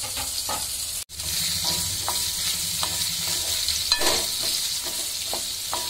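Shallots, tomato pieces and dried red chillies sizzling in hot oil in a metal kadai while a wooden spatula stirs them, scraping and knocking against the pan. The sound is a steady frying hiss with scattered scrapes, as the onion and tomato are sautéed. It drops out for an instant about a second in.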